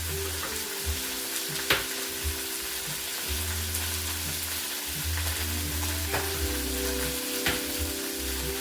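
Food sizzling in a frying pan with a steady hiss, broken by a few sharp clicks of a utensil. Background music with low, held bass notes plays underneath.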